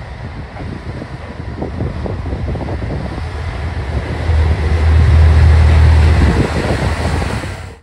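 Single-car JR Hokkaido KiHa 54 diesel railcar pulling away from the station under power. Its diesel engine note builds, with a deep hum at its loudest from about four to six seconds in as the car passes beneath.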